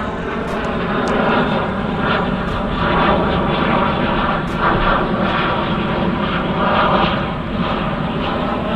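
A steady engine drone: a continuous hum with a rushing noise over it, swelling and easing a little every couple of seconds.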